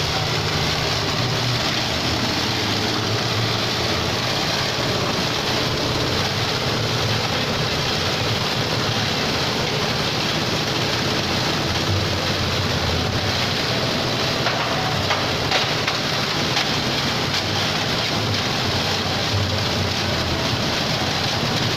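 Plastic shredder machine running steadily: a loud, dense, unbroken noise with a low hum beneath.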